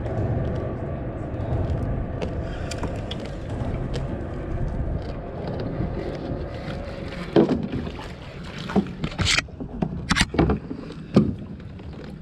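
Steady low rumble and wash of water around a kayak under a concrete bridge. From about seven seconds in there is a run of about six sharp knocks and thumps from gear being handled in the kayak.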